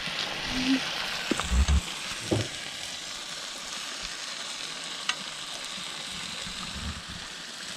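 Chicken frying and sizzling in a pan, a steady hiss, with a few short knocks of a utensil stirring it in the first couple of seconds and once more about five seconds in.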